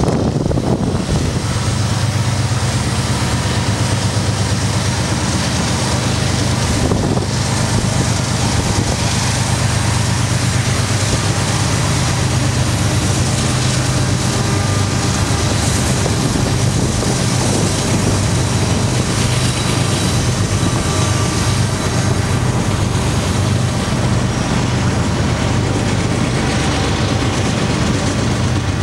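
Steady low rumble of a BNSF train's diesel locomotives running, with a faint hiss of wind.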